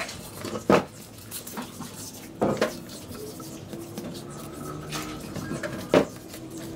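Metal sewing machine head being tipped over and set back down on a workbench: three heavy knocks, about a second in, about two and a half seconds in and near the end, with lighter clicks and clatter of small parts in between.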